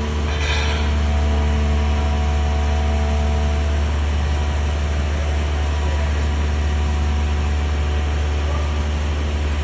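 A steady, low mechanical drone, like a machine or engine running.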